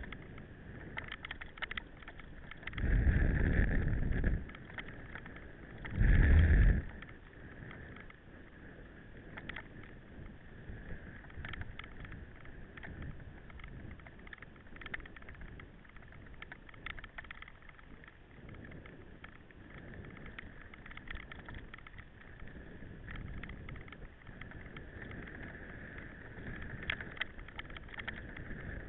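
Mountain bike in motion, recorded from the bike or rider: a steady whirr with many small rattles and clicks from the bike. Two loud low blasts of noise come about three and six seconds in.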